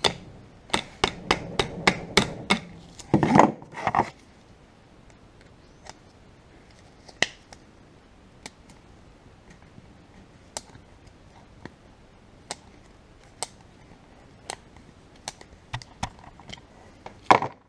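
Steel pliers clicking and scraping against the split pin and castellated pinion nut of a Land Rover Series 2a differential flange as the pin is worked out. A quick run of clicks and scraping comes in the first few seconds, then light scattered metal clicks about once a second, and a louder clack near the end.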